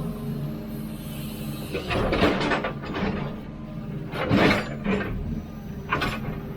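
Hidromek 102B backhoe loader's diesel engine running steadily while digging. Three louder, noisy grinding bursts come about two seconds apart as the bucket works.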